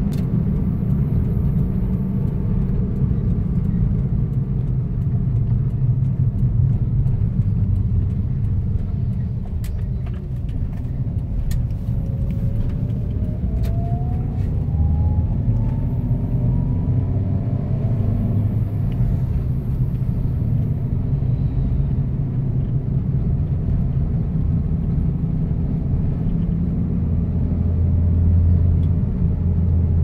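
Car on the move: a steady low rumble of engine and road noise, with a faint whine rising in pitch around the middle.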